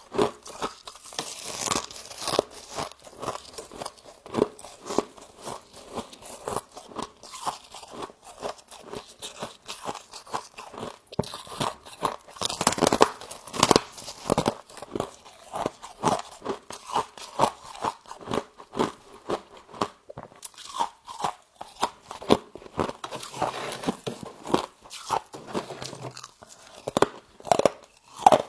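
A person biting and chewing humidifier frost up close: a steady run of crisp icy crunches, about two a second, with one longer, louder crunch about halfway through.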